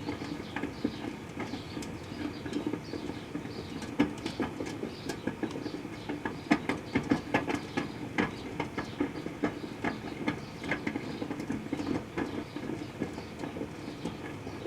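Proctor-Silex microwave oven running with a steady hum, with many irregular sharp crackles and ticks from the sugarcane heating inside, thickest in the middle.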